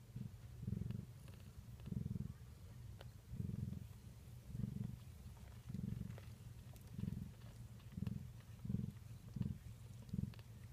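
Ragdoll cat purring close up, the low rumble swelling and fading with each breath about once a second, quickening near the end.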